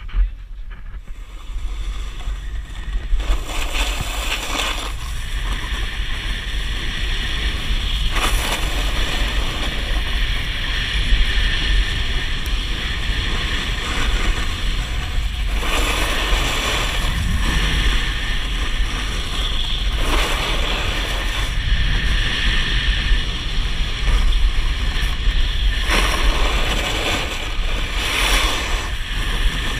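Wind rushing over the microphone as a snowboard slides downhill, with a constant low rumble under the hiss of the board on the snow. The board's scraping swells in louder surges several times, as the edge digs in.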